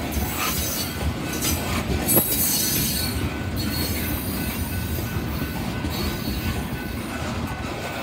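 Gravel train's open hopper and gondola cars rolling past: steady rumble and clatter of steel wheels on the rails, with high wheel squeal coming and going, loudest a couple of seconds in along with a single sharp clank.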